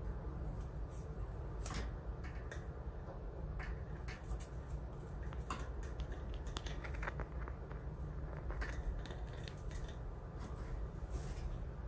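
Budgies moving about: scattered small clicks, taps and scratches, like claws and beaks on perches and bars, over a steady low hum.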